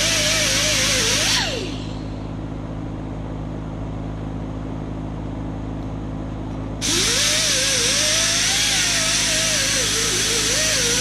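Power grinder grinding metal on a chain with a loud hiss. The grinding stops abruptly about a second and a half in, leaving a steady lower hum, and starts again about seven seconds in.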